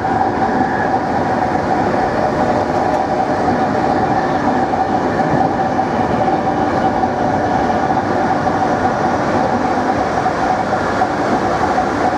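NS Plan V (Mat'64) electric multiple unit running at a steady speed. There is an even rail rumble with a steady whine from its electric traction motors.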